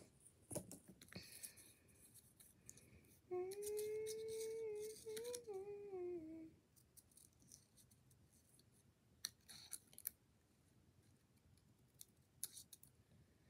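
A child hums a few notes for about three seconds, the pitch falling at the end. Faint scattered snips and rustles of scissors cutting paper come before and after.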